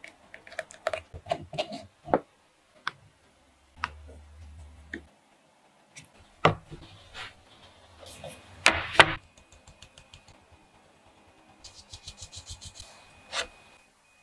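Scattered light clicks and taps of kitchen utensils on metal and glass, with a quick run of about eight light taps near the end.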